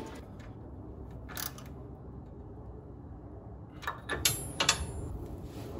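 Coil-spring compressor being worked loose and taken off a rear coil spring: a sharp metal click, then a cluster of clinks and clicks with a metallic ring about four seconds in, over a low steady hum.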